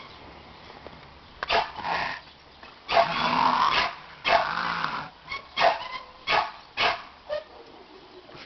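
American Pit Bull Terrier growling and barking in a series of short bursts, one of them a longer growl about three seconds in.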